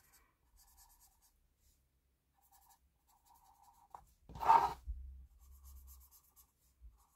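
Felt-tip permanent marker scratching faintly along the edge of a cardboard box as it is coloured black, with a click about four seconds in and a short, louder noise just after it.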